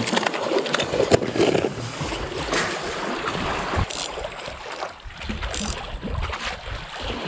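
Wind rumbling on the microphone over small waves lapping against shoreline rocks, with a few short clicks and knocks from handling a plastic lure box and a spinning rod and reel.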